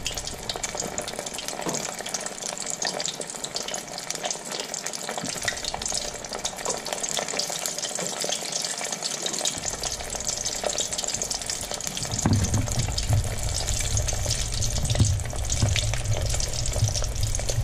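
Breaded scallops deep-frying in hot vegetable oil in a fryer basket: a dense, steady crackling sizzle of bubbling oil. A low rumble joins underneath about twelve seconds in.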